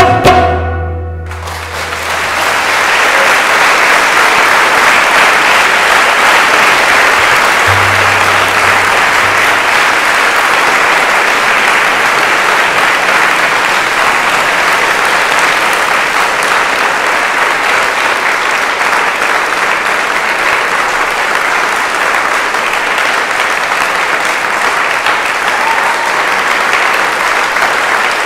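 The ensemble's music ends on a final tabla stroke whose low ring dies away within the first two seconds. Then an audience applauds steadily.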